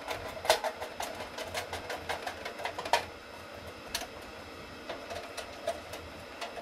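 Screwdriver turning screws into the metal of an air-cooled VW fan shroud and alternator stand: a rapid run of small metallic clicks and scrapes for about three seconds, then a few sharper single clicks.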